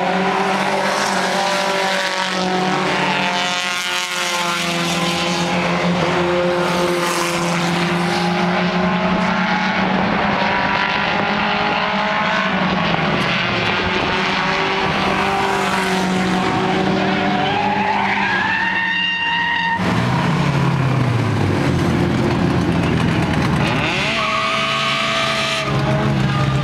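Several small-displacement stock race cars running hard on a short oval, engine notes overlapping and rising and falling in pitch as they pass. One engine's whine climbs sharply about two-thirds of the way through and cuts off suddenly.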